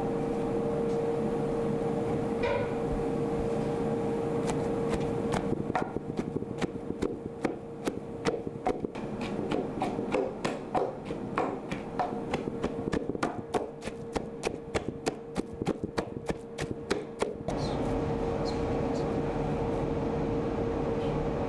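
Wooden pestle pounding banana peels and shredded paper in a large wooden mortar, mashing them into a pulp for fuel briquettes. The knocks come roughly two a second, irregular, from about six seconds in until near the end, over a steady hum with a single tone.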